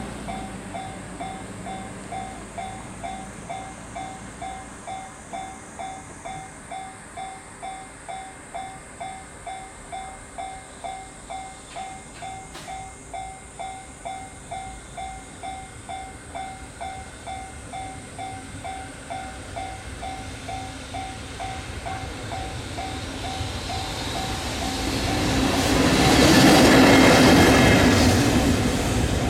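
Japanese level-crossing warning bell dinging about twice a second. From about twenty seconds in, a JR Freight locomotive running light without wagons approaches and passes over the crossing, growing loud and peaking near the end.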